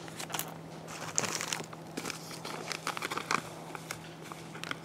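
Crinkling and rustling of MRE plastic packaging being handled and laid on a table, a scatter of short crackles over a faint steady hum.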